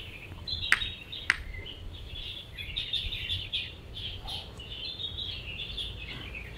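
Two sharp knocks about a second in, half a second apart: a bare fist hammering down on a small stone laid on a larger rock. Small birds chirp steadily behind.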